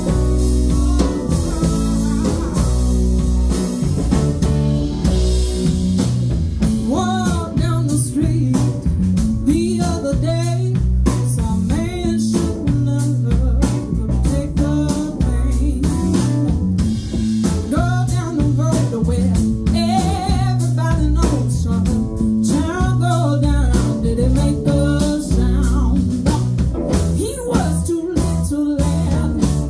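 Live rock band playing: electric guitars, bass guitar, keyboard and drum kit, with a woman singing lead from about seven seconds in.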